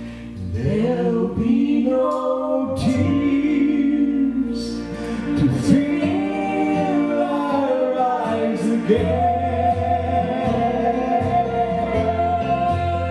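Gospel song being sung, the closing words of the refrain drawn out in long, gliding notes, the last one held from about nine seconds in.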